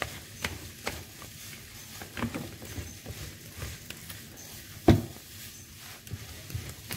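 Plastic scraper mashing and scraping damp, crumbly fish-bait mix against a plastic basin: irregular scrapes and soft clicks, with one louder knock a little before five seconds in.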